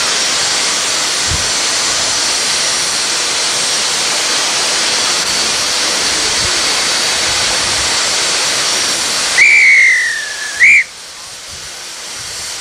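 Steam locomotive letting off steam with a loud, steady hiss. About nine seconds in, its steam whistle sounds one blast of about a second, slightly falling in pitch, then a short toot, and the hiss drops away after it.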